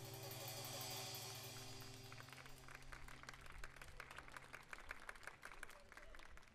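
A band's last chord held and ringing out, stopping about two seconds in, then an audience clapping.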